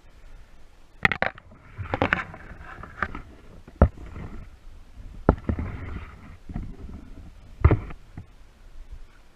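Footsteps wading and splashing through a shallow creek, with irregular sharp knocks and scrapes of carried gear.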